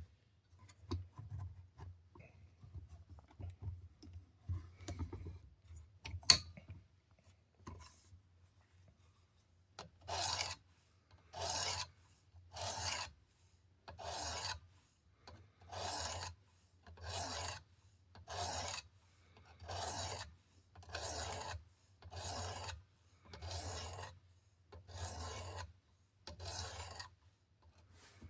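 Sharpening stone on a Work Sharp Precision sharpener scraping along a steel knife blade's edge with light pressure. The first strokes are uneven, with one sharp click partway through. About ten seconds in, a steady rhythm of raspy strokes starts, about one every second or so.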